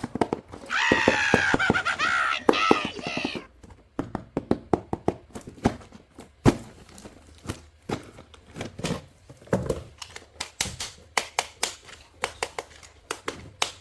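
A high, wavering voice-like sound for about three seconds, then a long run of sharp clicks and knocks like hard plastic toy parts being handled, coming faster near the end.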